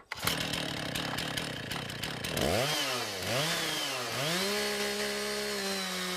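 Chainsaw running on a chainsaw sawmill: a noisy stretch at first, then the engine's pitch drops and climbs back twice before it settles to a steady high speed about four seconds in.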